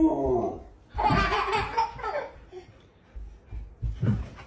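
A dog's drawn-out whine falls away at the start, then a person laughs in short breathy bursts.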